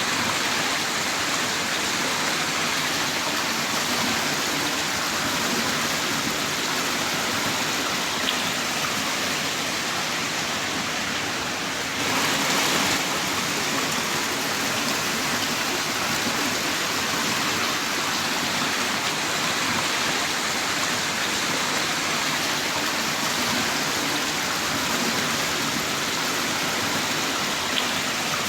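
Heavy rain downpour: a steady, dense hiss of rainfall that swells briefly about twelve seconds in, with a couple of faint single drop ticks.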